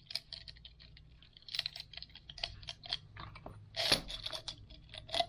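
Irregular clicking and light rattling as a clear plastic tube is opened and thin antennas slide out of it, with a sharper knock about four seconds in.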